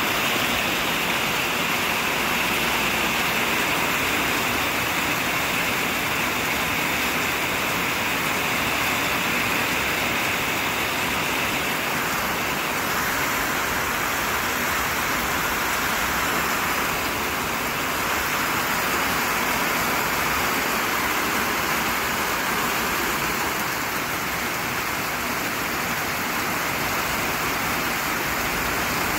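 Heavy rain falling in a steady downpour: a dense, even hiss of water that never lets up.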